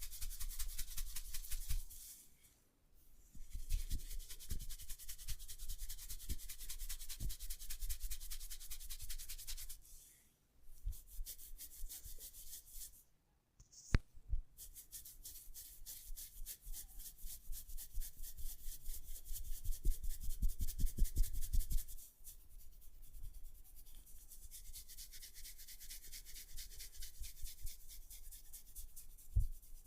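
Hair cracking in a head massage: fingers rubbing hair hard against the scalp, a dense run of quick crackles broken by a few short pauses. One sharp click stands out about halfway through.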